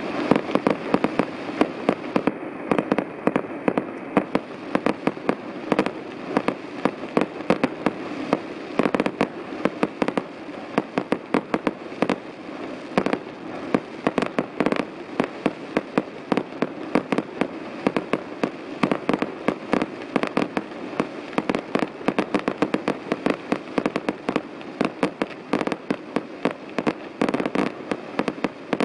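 Fireworks display: a rapid, unbroken barrage of shell bursts and crackling, many sharp bangs a second over a steady rumble.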